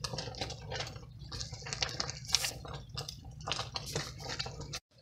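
Thick peach preserves at a hard boil, bubbling and popping irregularly while a wooden spoon stirs them, over a steady low hum. The sound cuts off suddenly near the end.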